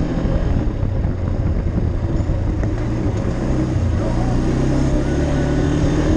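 ATV engine running steadily while the machine rides along a dirt trail, its note shifting a little in pitch about four seconds in.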